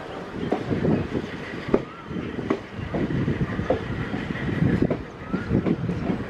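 Railway coach wheels clattering irregularly over rail joints and points, with a few short, rising squeals from the wheels.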